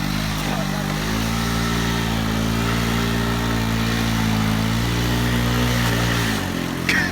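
Baja moped's small engine revving up, holding steady at high revs for several seconds, then dropping back. A brief high squeak comes near the end.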